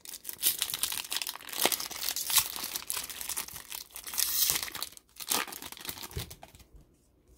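Crinkly foil wrapper of a 2002 Donruss baseball card pack crackling and tearing as it is pulled open by hand. The crackle comes in several bursts and dies away about a second before the end.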